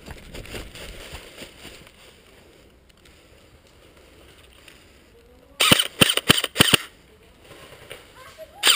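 Airsoft electric rifle firing: a quick string of about seven shots a little past halfway, then a rapid full-auto burst starting near the end.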